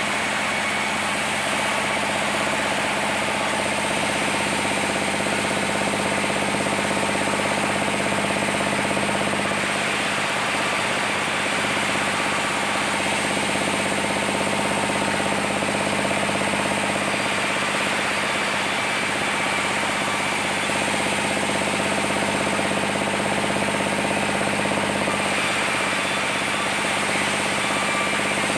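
Sawmill machinery running steadily: a continuous, even drone with a steady low hum and dense noise, no pauses.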